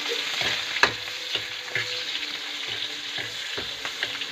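Food sizzling in a hot wok, with a metal spatula scraping and tapping the pan about twice a second as it is stirred.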